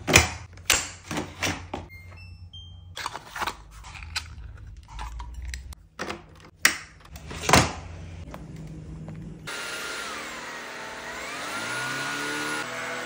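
A run of sharp plastic clicks and knocks as a cordless stick vacuum and its docking base are handled and parts twisted into place. From about nine seconds in, the vacuum's motor runs with a steady whir, its whining tone dipping in pitch and rising again once.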